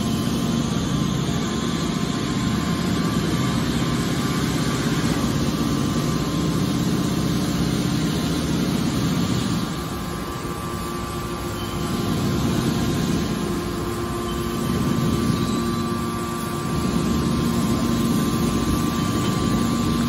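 Hydraulic scrap metal baler running as its rams open the chamber and push out a compressed bale. The hydraulic power unit gives a steady mechanical hum under load that dips a little about halfway, then picks up again.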